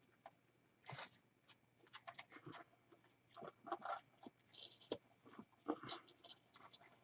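Faint, intermittent rustling and crinkling of wired ribbon and artificial evergreen branches as a ribbon bow is handled and pressed into a wreath, with a few small clicks.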